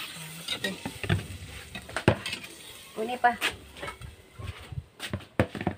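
Metal ladle stirring in a cooking pot, knocking and scraping against its sides in irregular clinks.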